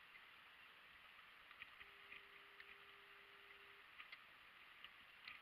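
Near silence: a faint steady hiss with a few scattered soft ticks, and a faint steady hum for about two seconds in the middle.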